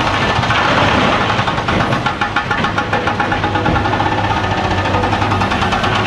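Liebherr R 954B crawler excavator's diesel engine running hard with a fast, even pulse and a steady hydraulic whine as it works its boom and bucket.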